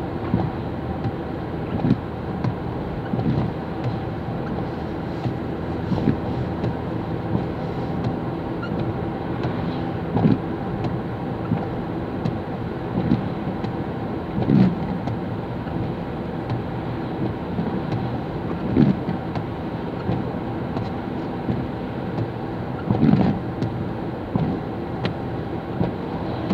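Steady in-car road and engine noise of a car driving on a wet road, with short swells about every four seconds as the windscreen wiper sweeps across the glass.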